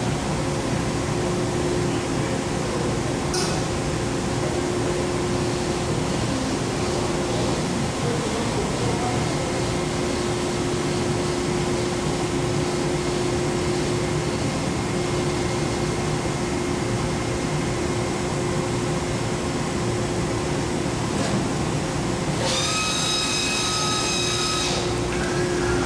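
Komo VR510 Fusion 5-axis CNC router running: a steady machine noise with a constant hum. Near the end a high, whining tone comes in for about two seconds.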